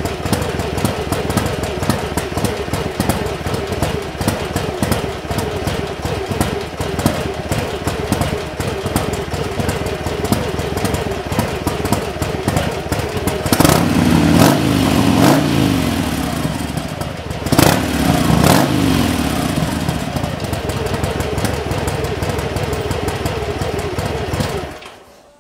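Harley-Davidson Sportster air-cooled V-twin running through a one-off exhaust: a steady idle, then revved up twice in the middle, and switched off near the end, the sound cutting off suddenly.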